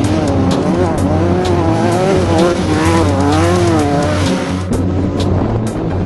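Off-road race vehicle's engine under hard driving, its pitch rising and falling again and again with the throttle, with many sharp clicks and knocks over the top.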